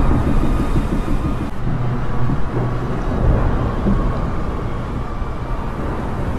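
A steady low rumble with a faint hum over it; the higher hiss drops away abruptly about one and a half seconds in.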